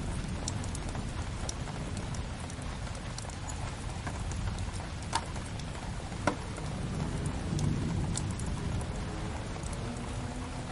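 Steady rain mixed with a crackling wood fire: an even hiss of rain over a low rumble, with scattered small crackles and two sharper pops about halfway through.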